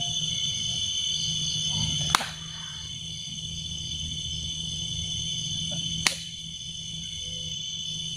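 Steady high-pitched chorus of night insects over a low hum, broken by two sharp clicks about four seconds apart.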